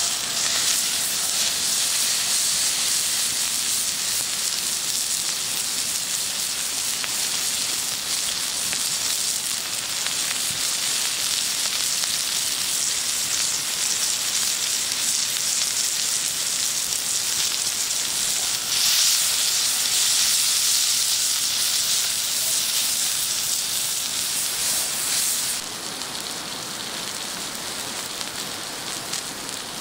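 Tomahawk steak sizzling on an oiled steel griddle plate over a campfire: a loud, steady frying hiss that starts suddenly as the meat hits the hot metal. It swells for a few seconds past the middle and eases near the end.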